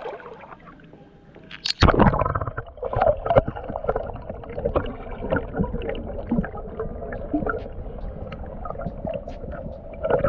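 A camera goes under the water with a splash about two seconds in, then picks up the muffled underwater sound of water gurgling and bubbling around it, with scattered small clicks.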